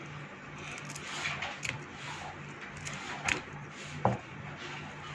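Kitchen scissors snipping through green chilies, a few short crisp cuts spread out with pauses between them, over a faint steady low hum.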